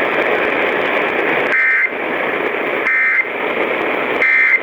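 Three short bursts of Emergency Alert System end-of-message data tones (the SAME digital burst) about 1.4 s apart, heard over AM radio reception with steady static hiss between them. The bursts signal the end of the alert.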